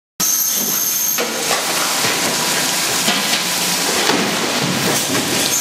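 Processing-plant noise: a loud, steady hiss like spraying or running water, with scattered knocks and clatter. It starts abruptly.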